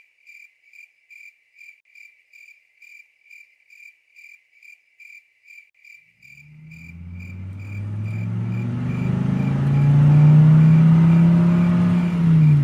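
Crickets chirping in an even rhythm, about three chirps a second. From about six seconds in, a car engine fades in and grows steadily louder as the car drives, with the crickets still going under it.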